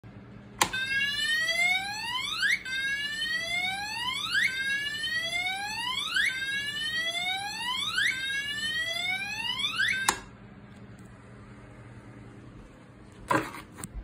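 Emergency alarm horn-strobe sounding a slow whoop tone: a pitch sweep rising fast, repeated about every two seconds. It starts with the click of the switch and cuts off suddenly about ten seconds in. A brief rustle of handling comes near the end.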